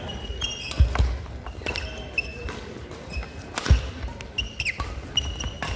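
Badminton rally on a wooden sports-hall court: several sharp racket hits on the shuttlecock, the loudest nearly four seconds in. Between the hits come short high squeaks of sports shoes and dull thuds of footfalls on the floor.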